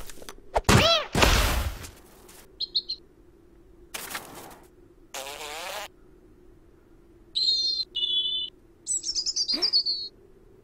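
Cartoon sound effects: a cat's short cry and a soft whump into snow in the first two seconds, a wavy cat cry around the middle, and a small bird chirping in several short high bursts, the last a quick falling run of chirps.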